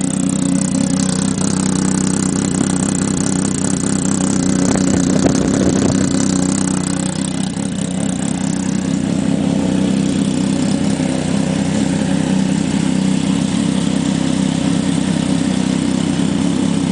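Yamaha snowmobile engine, converted to power a gyroplane, idling steadily with no propeller fitted; an even, smooth exhaust note.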